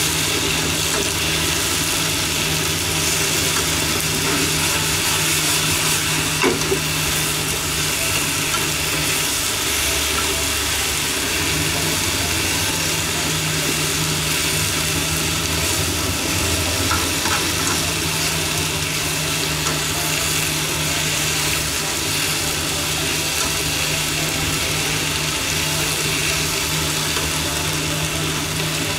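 Shishito peppers and chikuwa sizzling in a nonstick frying pan as they are stir-fried with chopsticks. A steady low hum runs underneath.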